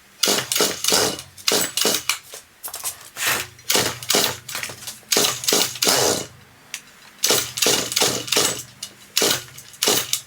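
Chainsaw being pull-started over and over: a quick series of short starter-cord pulls that turn the engine over without it catching.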